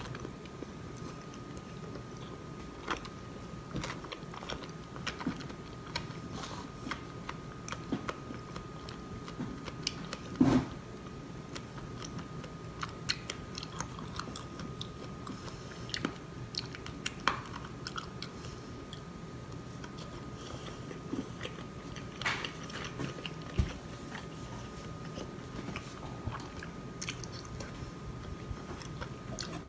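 A person chewing and biting into waffle close to the microphone, with scattered crunches and small clicks and taps of utensils or the plate; one sharp click about ten seconds in is the loudest. A faint steady hum and a thin high tone run underneath.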